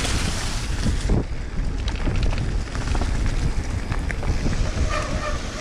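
Wind buffeting the microphone of a camera on a mountain bike moving along a trail, a steady loud rumble, with short rattles and clicks from the bike running over rough ground.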